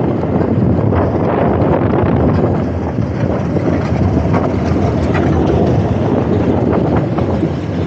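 Steady wind rush on a helmet-mounted microphone on a moving motorcycle, with the motorcycle's engine and tyre noise underneath.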